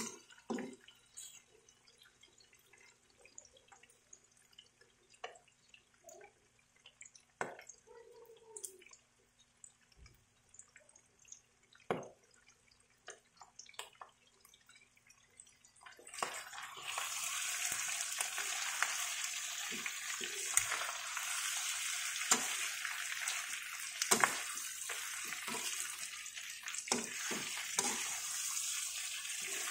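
Pork adobo frying in a wok: quiet at first with scattered clicks from a metal spatula, then about halfway a steady loud sizzle sets in as the meat fries in its rendered fat, with the spatula knocking and scraping on the wok.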